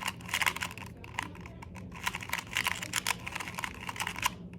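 Plastic Rubik's cube being turned and handled quickly, its layers clattering in a dense run of small clicks that stops near the end.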